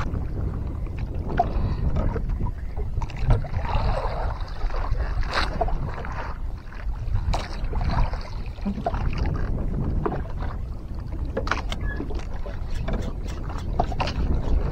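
Wind on the microphone and water sloshing against the hull of a small wooden outrigger boat, making a steady low rumble. Scattered light clicks and knocks run through it and come thicker near the end.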